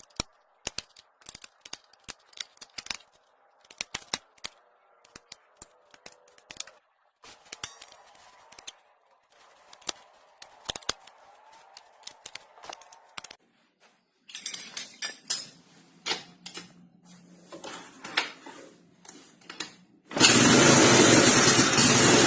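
Scattered clicks and knocks of tools and metal parts being handled. About two seconds before the end, the Yamaha Nouvo scooter's single-cylinder engine starts and runs loudly for a test run after the CVT has been reassembled.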